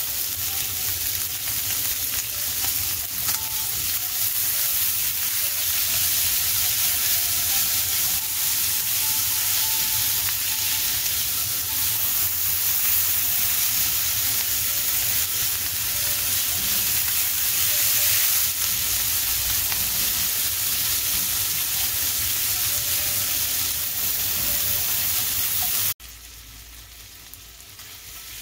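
Diced turkey sausage, red onion and green bell pepper sizzling in a cast iron skillet, stirred now and then with a silicone spatula. The sizzle drops suddenly to a much quieter hiss near the end.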